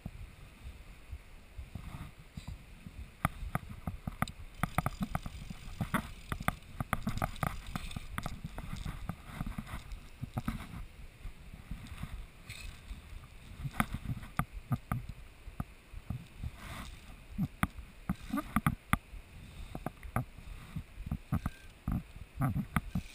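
Irregular clicks and low thumps of handling noise on a body-worn GoPro, over a steady wash of river water.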